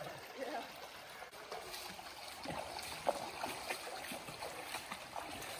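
Creek water flowing and splashing over rocks, an even rushing with small irregular splashes.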